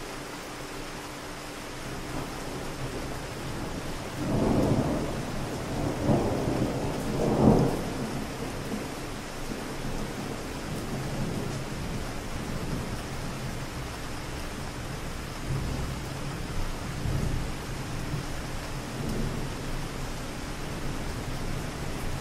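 Steady city rain with distant thunder. A low rolling rumble builds a couple of seconds in and swells three times, loudest about seven seconds in, then keeps rumbling faintly under the rain.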